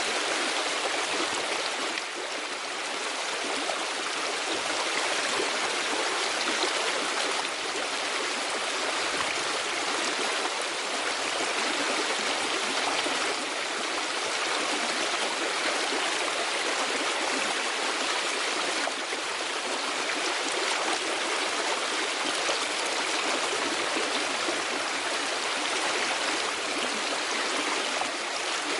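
River water rushing steadily, an even unbroken sound of flowing water.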